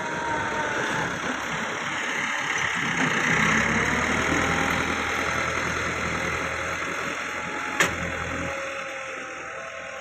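Massey Ferguson 385 tractor's four-cylinder diesel engine running steadily under load while pulling a disc harrow through soil. It is loudest about three to four seconds in and fades as the tractor pulls away. A single sharp click comes near the end.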